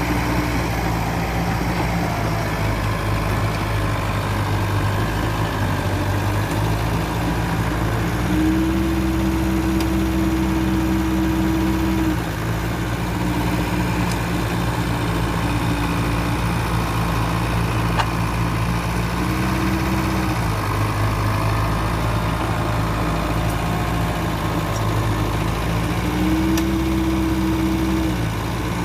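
Mitsubishi BD2e bulldozer's diesel engine working steadily. Its note rises and holds higher for a few seconds three times, about a third of the way in, about two-thirds in, and near the end, then drops back.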